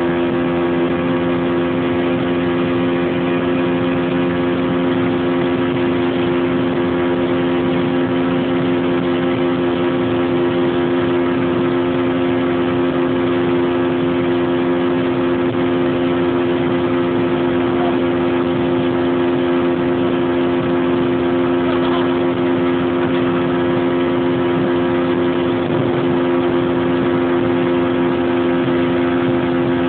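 60-horsepower outboard motor running at a steady, unchanging throttle while towing a water skier, over the rush of water from the boat's wake.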